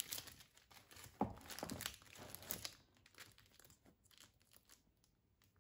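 Plastic shrink-wrap on manga volumes crinkling, with small knocks and scrapes as the books are pushed onto a shelf against other books. The rustles and taps come irregularly, busiest in the first three seconds and sparser and fainter after.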